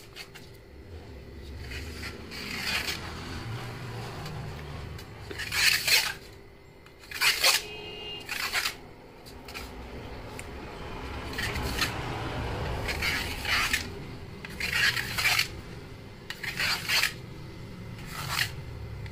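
Table knife cutting through a steamed dhokla in a metal plate. The blade clicks and scrapes against the plate in short strokes, repeated at uneven intervals.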